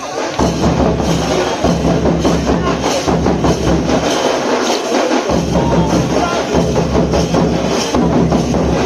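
Dhamsa kettle drums and madol hand drums played together in a loud, dense, continuous rhythm, with a deep low drum tone that drops out for about a second midway.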